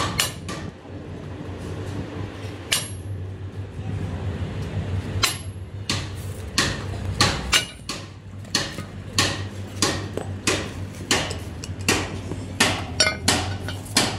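Hammer blows on a steel truck torque rod, knocking the old bushing out of its eye. A few scattered strikes come first, then from about six seconds in a steady run of blows, about one to two a second, some with a metallic ring, over a steady low hum.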